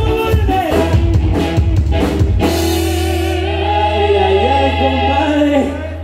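Live norteño band music: a drum beat for the first couple of seconds, then the band holds a long sustained chord over a steady bass note.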